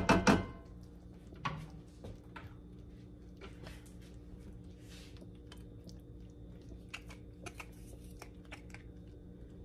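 Mushroom pan sauce simmering in a cast iron skillet, with faint, irregular small pops and clicks, over a steady low hum.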